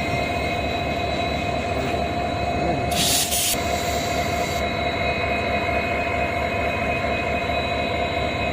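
Passenger train running as it pulls out of the station: a continuous rumble with several steady high tones over it, and a short sharp hiss about three seconds in.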